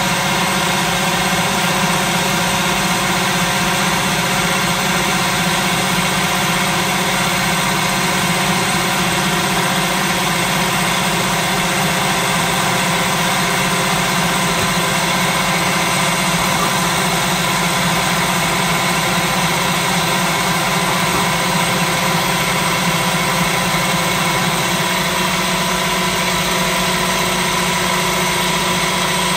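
Electric food processor motor running steadily at constant speed, its blade chopping raw boneless chicken with onion, bread and spices into a fine mince.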